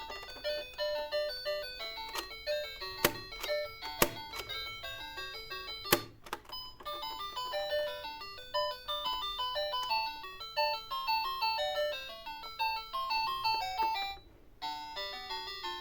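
Tinkly electronic music: a busy melody of short, bright notes. Three sharp clacks cut through it about three, four and six seconds in, and the music breaks off briefly near the end.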